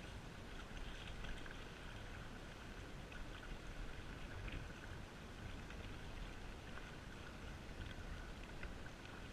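Faint water sounds from canoe or kayak paddling: small splashes and drips from paddles dipping into the loch, over a low steady rumble.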